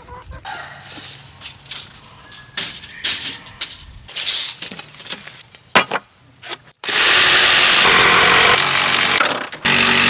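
Power saw running and cutting a wooden trim board, loud and steady for about three seconds in the second half, with a short second burst near the end. Before it come scattered lighter knocks and scuffs.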